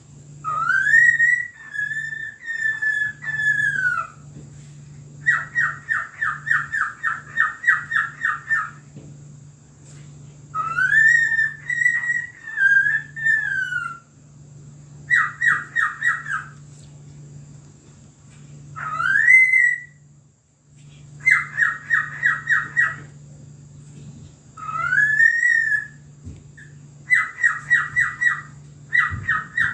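A bird mimicking a police siren in whistles: long wailing notes that rise and waver, alternating with runs of short, quick yelping notes, four of each in turn.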